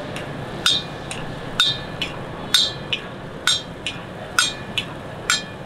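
Perforated metal ladle clanking against the side of a metal karahi as the kata kat masala is stirred: a steady rhythm of ringing clanks, about one strong strike a second with a lighter one between, over a steady background hiss.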